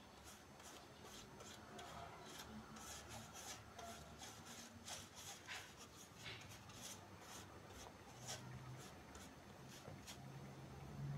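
Faint swishing of a paintbrush stroked back and forth over a wall of popsicle sticks, a few brush strokes a second.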